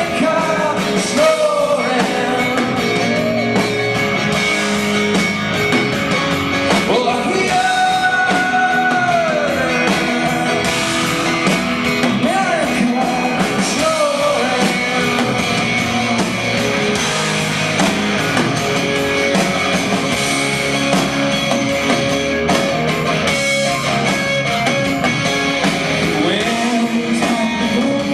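Live rock band performing a song: electric guitars with a sung vocal melody over them.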